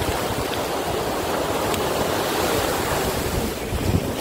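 Shallow sea surf washing up the sand and swirling around bare feet at the water's edge, a steady hiss of breaking foam. Wind rumbles on the microphone underneath.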